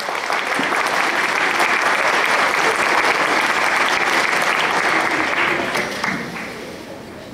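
Theatre audience applauding loudly at the end of a song, dying away about six seconds in.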